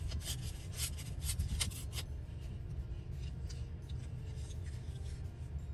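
Paper scraps rustling as they are picked up and laid in place, busiest in the first two seconds, over a steady low hum.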